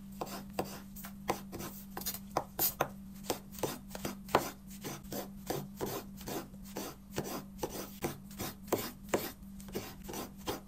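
Chef's knife chopping sliced button mushrooms on a bamboo cutting board: a steady run of blade knocks, about four a second. A faint steady low hum runs underneath.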